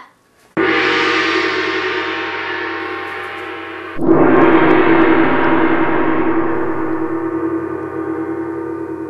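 A gong struck twice, about three and a half seconds apart, each stroke ringing on and slowly dying away.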